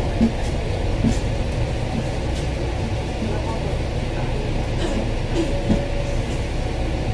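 Cabin noise aboard a Duple Metsec-bodied Hong Kong bus in service: a steady engine and road rumble, with brief faint creaks and clicks from the moving bus.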